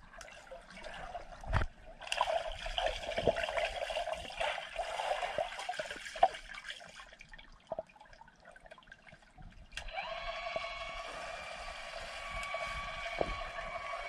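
Water heard through an underwater microphone in a swimming pool: a dull thump about a second and a half in, then muffled swishing and bubbling from a swimmer moving through the water. From about ten seconds in, a steady mechanical hum with several fixed tones joins.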